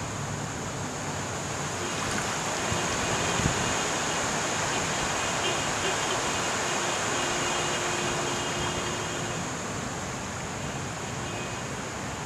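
Fast-flowing floodwater rushing past in a steady, even wash, with one brief knock about three and a half seconds in.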